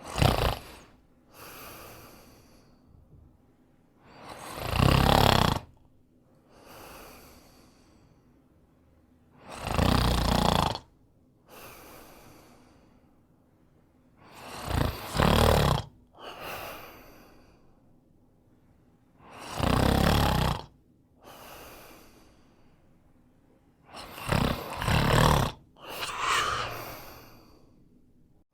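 A man snoring in a steady rhythm: a loud snore about every five seconds, six in all, each followed a second or so later by a softer breath.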